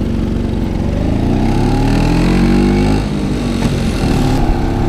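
1960 Vespa scooter's two-stroke single-cylinder engine pulling under acceleration, its pitch rising for about two seconds, then dropping sharply about three seconds in at a gear change, and running on steadily after that.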